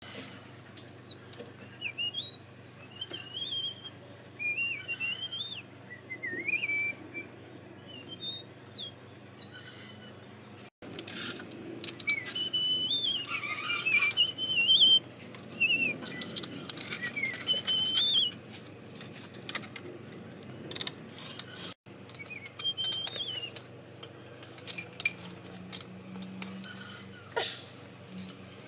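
Small birds chirping and whistling in short, wavering phrases, with scattered sharp clicks and knocks among them.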